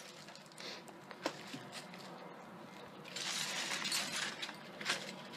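Light rustling and clattering of smashed CRT television parts being handled as circuit boards are pulled from the broken plastic casing. There is a small clink about a second in, and the rustling rises for a second or so past the halfway point.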